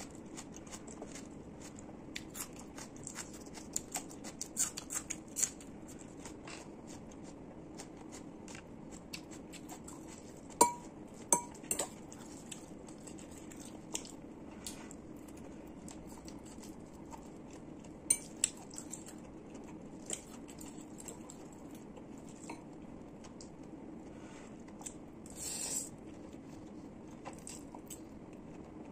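Metal fork clinking and scraping against a ceramic bowl while noodles are eaten, with a few sharp, ringing clinks about ten to twelve seconds in and again near eighteen and twenty seconds, between quieter chewing and mouth noises. A short slurp of noodles comes near the end, over a steady low hum.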